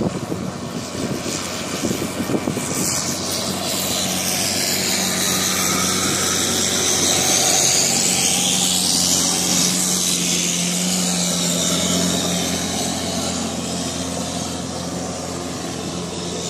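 Boat engine running steadily under way, with water and wind rushing past the open-sided hull. The engine noise swells to a peak around the middle and eases off again toward the end.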